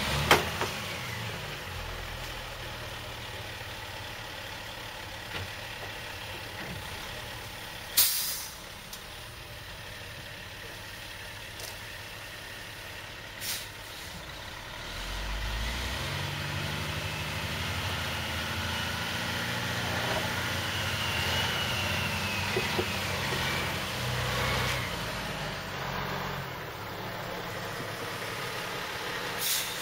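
Diesel engine of a milk tanker truck running as it manoeuvres in snow, growing louder about halfway through as it works harder. A few short, sharp noises stand out over the engine.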